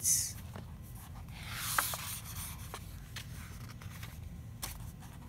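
A picture-book page being turned by hand: paper rustling and sliding, swelling about a second in, with a few faint clicks of fingers and paper.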